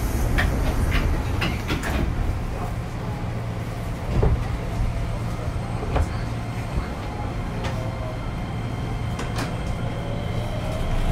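Inside a JR East 205 series 5000-subseries electric train car standing at a station: a steady low hum with scattered knocks and clunks. Near the end, the car's Toyo Denki IGBT-VVVF inverter starts a rising whine as the train begins to pull away.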